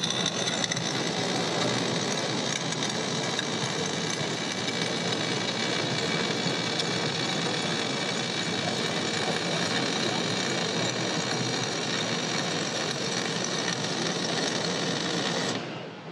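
Welding arc at the torch of an ABB GoFa CRB 15000 collaborative robot, running as a steady hiss while it lays a weld. It cuts off sharply near the end as the arc is switched off.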